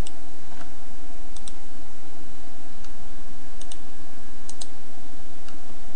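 Computer mouse clicking about four times, each a close pair of sharp clicks, over a steady hiss from the recording microphone.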